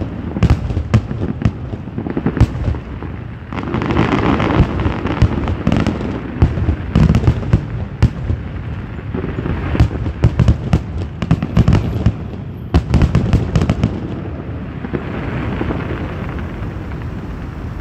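Aerial fireworks bursting in a rapid, dense barrage of bangs and crackles; the bangs thin out about fourteen seconds in.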